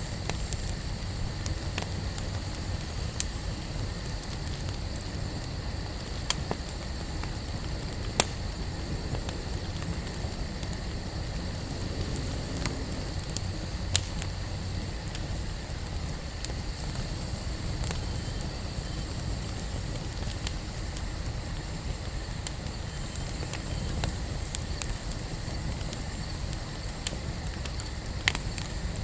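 Wood campfire burning: a steady low rush with sharp crackles and pops now and then, the loudest about 8 and 14 seconds in.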